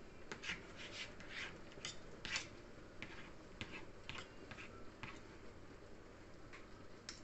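Metal spoon scraping finely chopped ingredients off the blade of a chef's knife: a series of short, faint scrapes and clicks, most of them in the first five seconds.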